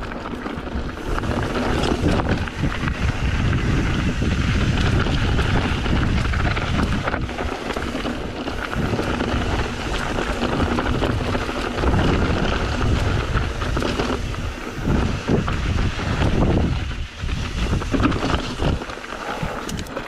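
Wind buffeting an action camera's microphone over a mountain bike riding down a rocky dirt singletrack. The tyres rumble over dirt and gravel, and the bike gives repeated short knocks and rattles as it crosses rocks.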